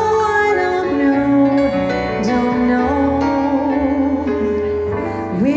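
Live jazz trio playing a slow bossa nova ballad: a woman's voice singing over a Yamaha CP stage piano and electric bass, with steady low bass notes under sustained, gliding vocal lines.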